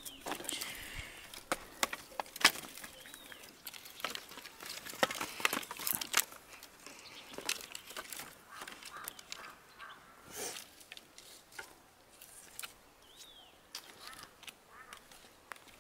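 Dry sticks and split firewood knocking, clattering and snapping as they are picked up and stacked by hand. The sharp irregular knocks come thickest in the first half and thin out towards the end.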